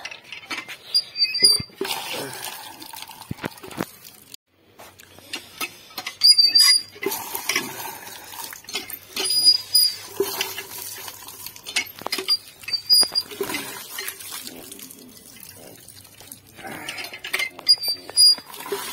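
Water hand pump being worked by its handle, its mechanism giving short high squeaks every few seconds, with water gushing from the spout and splashing onto a plate being rinsed, and the plate clinking.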